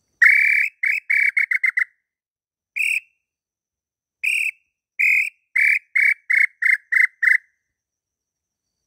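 Whistled song of the tataupa tinamou (inhambu pé-roxo): a long note followed by a run of short notes that quickens. After a lone note and a pause, a second run of short notes quickens and stops about seven and a half seconds in.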